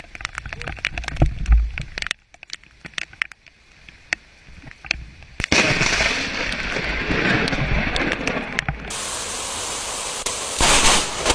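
Lightning striking close by: a run of sharp crackling cracks with a low boom of thunder about a second and a half in. After about five seconds this gives way to a steady rushing noise.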